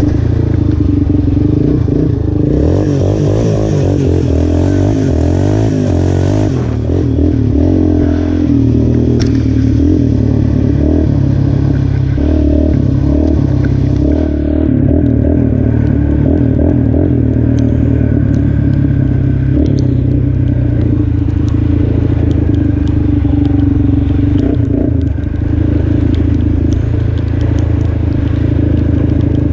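Yamaha Raptor 350 ATV's single-cylinder four-stroke engine running under load on a ride, its note rising and falling with the throttle. It runs on a freshly rejetted and cleaned carburetor with a 150 main jet and does not cut out. A few seconds of hiss come in about three seconds in.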